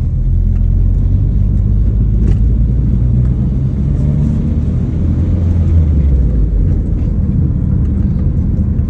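BMW E30 M3's four-cylinder engine running steadily with a low rumble, with a few faint clicks over it.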